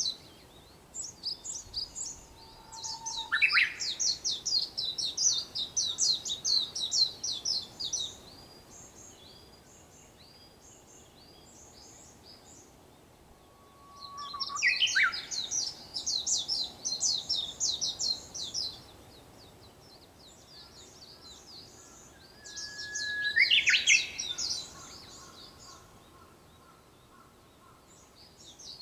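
Japanese bush warbler (uguisu) singing its "hoo-hokekyo" song three times, each a held whistle followed by a quick rising flourish. Between and over the songs, other small birds chatter in fast, high bursts.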